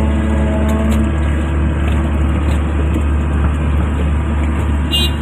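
Excavator diesel engine running steadily with a heavy low drone; a steady pitched whine on top fades out about a second in.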